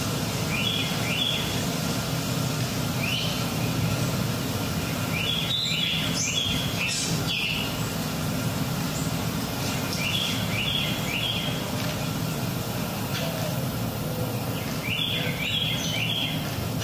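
Recorded forest ambience on a dance soundtrack: a steady background hiss with a bird calling in quick runs of two to four short rising chirps, repeated every few seconds.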